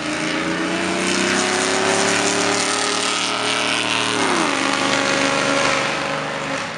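Jeep with a loud, poorly muffled exhaust accelerating past, its engine note climbing steadily for about four seconds, then dropping sharply at a gear change and running on at a lower pitch. Loud and obnoxious.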